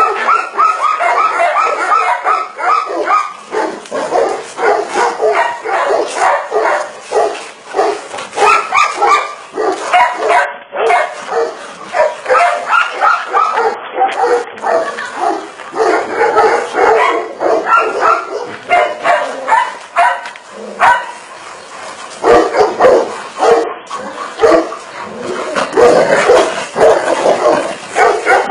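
Tibetan mastiffs fighting, barking and yelping in quick, near-continuous short calls.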